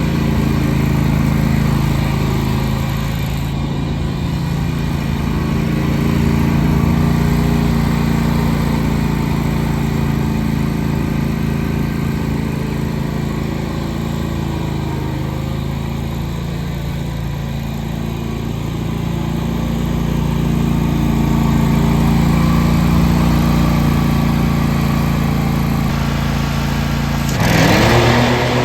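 John Deere L120 riding lawn mower's 20 hp gas engine running steadily, its loudness slowly swelling and easing. Near the end the engine pitch rises quickly, with a louder, noisier burst as it revs up.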